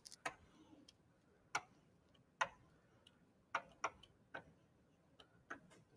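Faint, irregular clicks of a stylus tapping a digital writing surface while handwriting is drawn, about eight taps spread unevenly.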